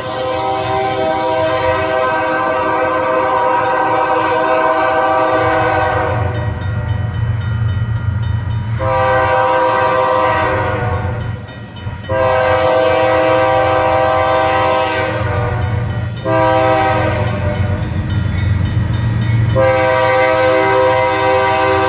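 Locomotive air horn sounding a chord in a series of long blasts with short breaks as the train nears a grade crossing, over the low rumble of the approaching train.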